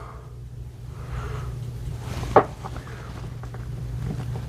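Steady low hum with a single short clack about two and a half seconds in.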